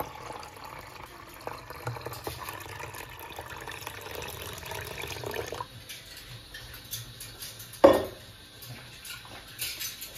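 Lemon juice pouring into a plastic measuring jug, a steady splashing flow that stops about five and a half seconds in. A single sharp knock comes near the eight-second mark, followed by a few small drips or clicks.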